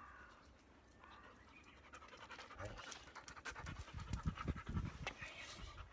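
Labrador panting in quick breaths, getting louder from about two and a half seconds in.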